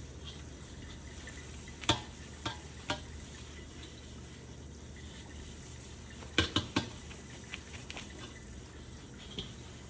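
Paper towel wiping the outside of a carbon-steel wok held over a stainless steel sink, with sharp metal clanks as the wok knocks against the sink: one about two seconds in, two lighter ones soon after, and three in quick succession about six and a half seconds in.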